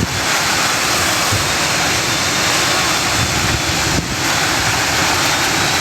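Hurricane-force wind rushing steadily and buffeting the microphone, with a short drop about four seconds in.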